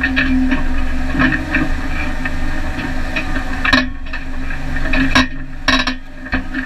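Off-road vehicle driving over a rough, rocky dirt trail: a steady engine and road drone with constant irregular rattling and knocking from the body and loose gear as it jolts over the bumps.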